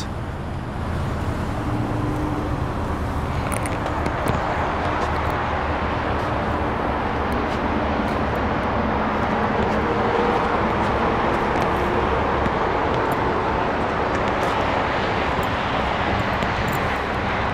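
A 2018 Ford Edge Titanium's engine idling, heard at its dual exhaust: a steady low rumble.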